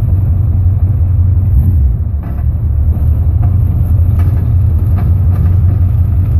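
Low, steady drivetrain rumble from the rear end and drive shaft of a 1976 Chevy C10 on the move, with a few faint clicks. It is a rough, binding vibration that the owner suspects comes from the universal joints or a loose drive shaft.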